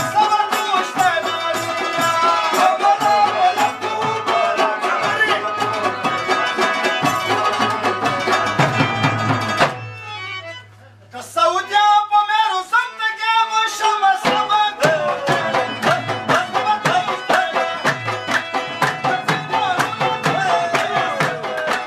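Pashto folk dance music with fast drumming under a melody. About ten seconds in, the drums stop for a few seconds, leaving a single melodic line, and then the full band comes back in.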